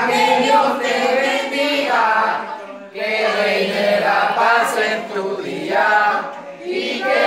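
Several people singing a birthday song together, with a short break between lines about three seconds in.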